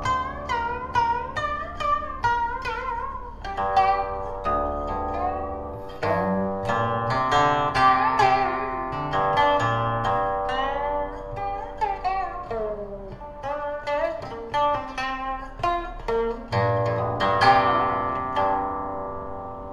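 Guqin played solo: a steady stream of plucked notes that ring on, many of them bent upward and downward in pitch by left-hand slides along the string after the pluck.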